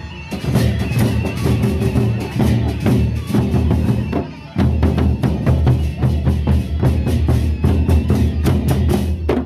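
Gendang beleq, the large Sasak barrel drums, beaten hard and fast with sticks by a marching troupe in a dense, heavy rhythm. The drumming drops out briefly about four and a half seconds in, then comes back, and cuts off suddenly at the end.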